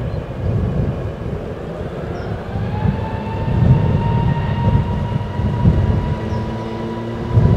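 Jet airliner's turbofan engines spooling up: a whine rises about two and a half seconds in, then holds steady over a heavy low rumble.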